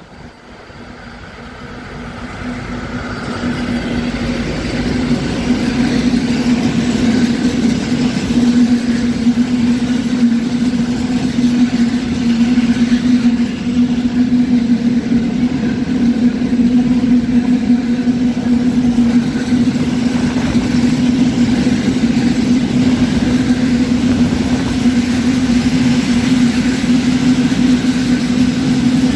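An ST45 diesel-electric freight locomotive approaches and passes, its sound swelling over the first few seconds. A train of open freight wagons follows, rolling past on the rails with a steady, loud drone.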